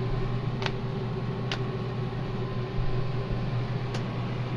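Steady hum of an electric fan motor, with three light clicks: two in the first second and a half and one near the end.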